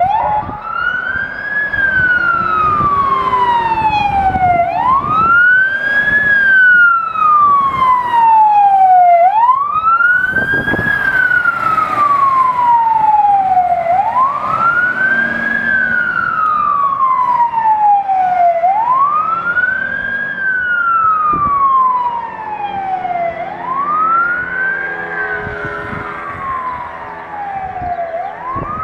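Siren of a MAN TGM 13.290 fire engine wailing on an emergency run: a slow repeating cycle about five seconds long, each a quick rise and then a long fall in pitch. It switches on suddenly and grows fainter after about twenty-two seconds as the truck drives away.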